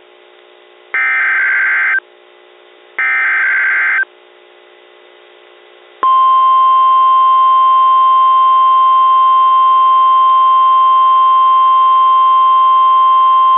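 NOAA Weather Radio emergency alert received over the air: two one-second bursts of SAME header data, a harsh digital warble, two seconds apart, then about two seconds later the loud, steady 1050 Hz warning alarm tone comes on and holds. The sequence announces a tornado warning.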